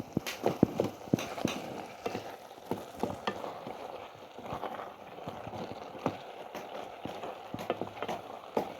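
Irregular knocks and clicks of cooking utensils against a pot, over a faint sizzling hiss.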